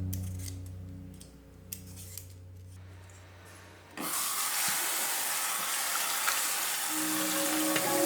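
Background music fades down, then about four seconds in a steady hiss starts suddenly and holds, with the music coming back underneath near the end.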